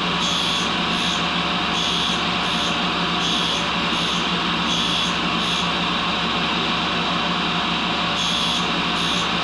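Tool and cutter grinder running steadily with a motor hum, its wheel grinding a carbide lathe tool bit in pairs of brief high scrapes about every second and a half, with a pause of about two seconds past the middle.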